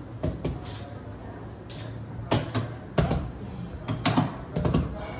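A few sharp, light knocks and taps, scattered irregularly through the second half, over a low steady hum.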